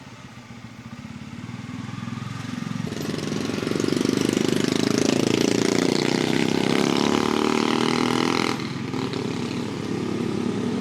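Bajaj Pulsar N250's single-cylinder engine pulling under throttle while riding, the engine note building over the first few seconds, holding steady, then easing off about eight and a half seconds in.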